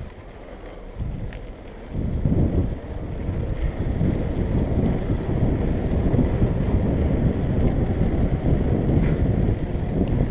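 Wind buffeting the microphone of a camera on a moving bicycle: a steady low rumble that gets clearly louder about two seconds in and then holds.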